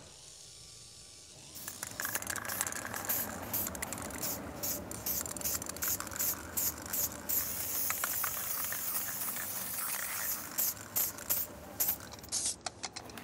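Aerosol spray paint can hissing in many short bursts as paint is sprayed through a stencil onto a wall, starting about a second and a half in.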